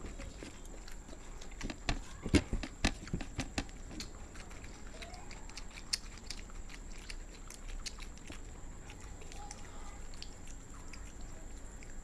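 People chewing and biting food during an eating challenge, with a cluster of sharp clicks about two to four seconds in and sparse, fainter clicks after.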